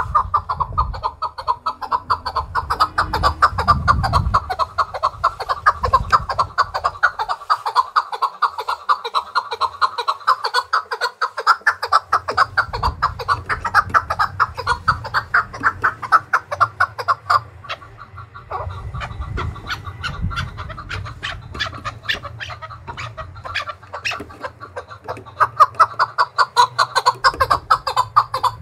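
Male chukar partridge calling: a long unbroken run of rapid clucking 'chuk-chuk' notes, easing off briefly about two-thirds of the way through before building again. It is the bird's challenge call to rival partridges, given by a bird kept for fighting.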